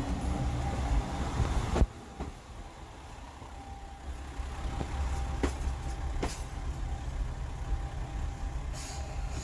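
Low, steady rumble of a vehicle on the move, with a few light clicks in the second half; the sound drops away abruptly about two seconds in and builds again a couple of seconds later.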